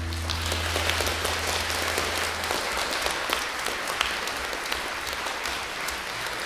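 Concert audience applauding at the end of a two-guitar piece: steady, dense clapping.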